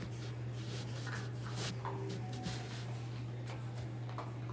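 A small dog eating from a food bowl: a few faint crunches and clicks over a steady low hum.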